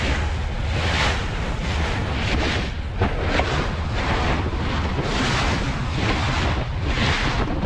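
A passenger ferry under way at speed: a steady low engine drone under water rushing and splashing along the hull, with wind buffeting the microphone in surges about once a second.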